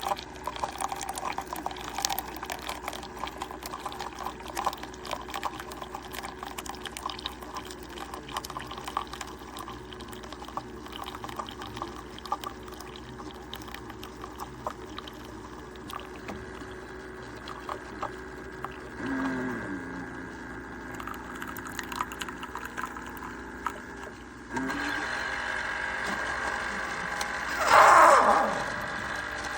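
Single-serve pod coffee maker brewing, liquid pouring and crackling into the cup. A steady low hum starts a little past the middle, the level rises toward the end, and a loud, brief sound falling in pitch comes near the end.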